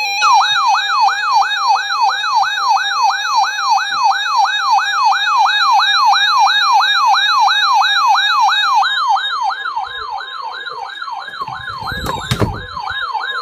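Electronic yelp siren in an emergency alert broadcast, its pitch sweeping quickly up and dropping back about three times a second, steady and loud. A low thud with a sharp click comes near the end.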